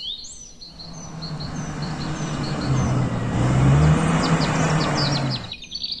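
A motor vehicle's engine hum and road noise, growing louder to a peak about four seconds in, then cutting off abruptly. Small birds chirp in short high notes throughout.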